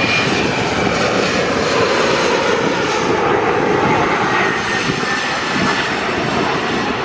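Airliner passing close by on arrival, its engines a loud, steady rush with a faint high whine.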